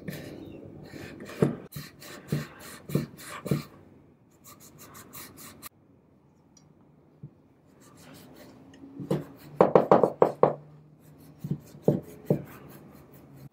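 Hand rubbing the edge of a lacquered wooden jewellery box with a small folded pad: short scratchy strokes in groups, a pause about halfway, then a quicker, louder flurry of strokes and a few more near the end.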